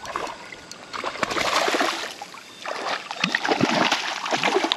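Hooked rainbow trout thrashing and splashing at the surface close to the bank while being played on rod and line, in two spells of splashing.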